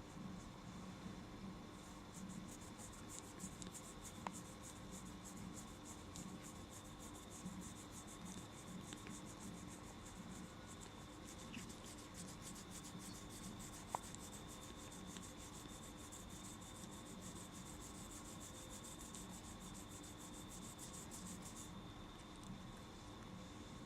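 Fingernails scratching a cat's back fur in quick, rapid strokes, starting about two seconds in and stopping shortly before the end.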